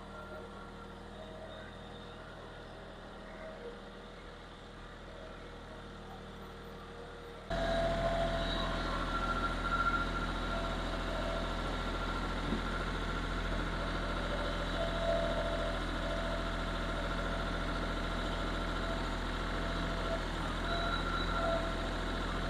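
Kioti CK4020 compact tractor's diesel engine running steadily, faint and distant at first, then much louder and closer from about a third of the way in.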